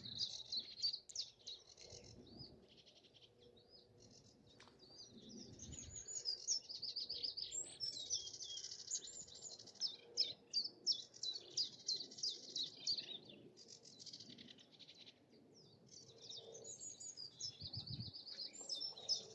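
Reed warblers and sedge warblers singing: long runs of rapid chattering song, with a short lull about three quarters of the way through before it picks up again.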